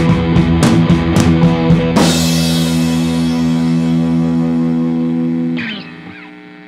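Background rock music with drum kit and electric guitar. The drums stop about two seconds in and a held guitar chord rings on, dropping away sharply near the end.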